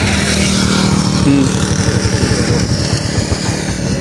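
Motorcycle engine running steadily while riding, a fast even chugging, with wind hissing over the microphone.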